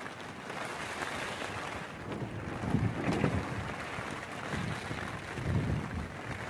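Strong wind gusting and buffeting the microphone, a steady rushing with low rumbling swells about three seconds in and again near the end.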